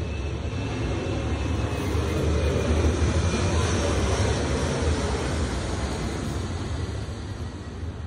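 A passing aircraft's rumble, swelling to its loudest about three seconds in and fading away again.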